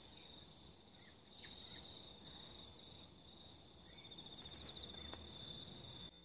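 Faint, steady, high-pitched trill under a quiet background, pulsing in places, with a single light click about five seconds in.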